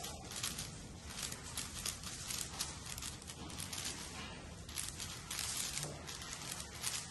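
Plastic 6x6 speed cube being turned fast by hand, its layers clicking and clacking in a rapid, uneven stream.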